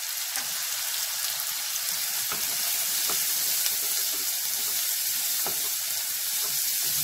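Chopped onion and turmeric sizzling steadily in hot oil in a nonstick pan, with a wooden spatula scraping through it a few times as it is stirred.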